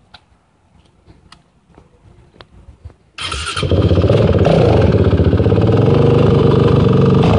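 Honda TRX450ER ATV's 449 cc single-cylinder four-stroke engine starting about three seconds in and then running steadily, after a few faint clicks.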